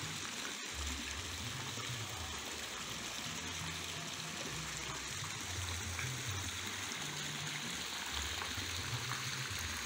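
Water spraying from a perforated PVC pipe and splashing into a fish pond: a steady trickling and splashing, with low rumbles coming and going underneath.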